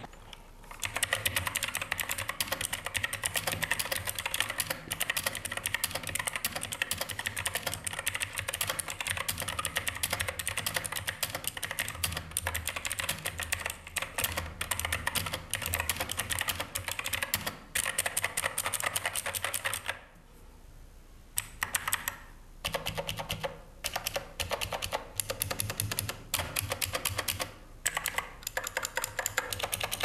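Arms Cool HK107 mechanical keyboard with clicky blue switches being typed on fast, a quick run of sharp, loud key clicks. The typing stops briefly about two-thirds of the way in, then goes on in short bursts.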